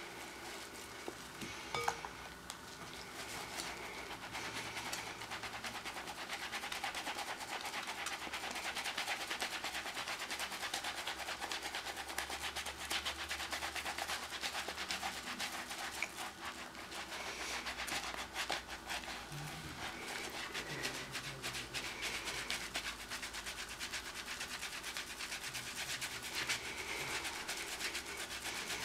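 Skin of the hands being scrubbed hard in rapid, continuous strokes, a little louder after the first few seconds.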